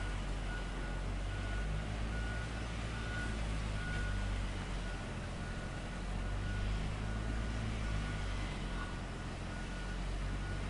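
Heavy machine's diesel engine running steadily, with its reversing alarm beeping at an even pace about once a second.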